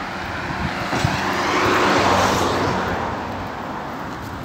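A car driving past on the road, its tyre and engine noise rising as it nears, loudest about two seconds in, then fading as it goes away.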